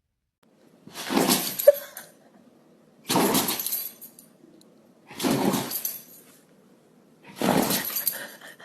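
A dog sneezing four times, about two seconds apart.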